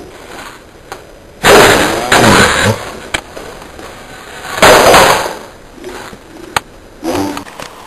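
Old wooden door being forced open with a loud bang and rattle about one and a half seconds in, then a second loud crash nearly five seconds in.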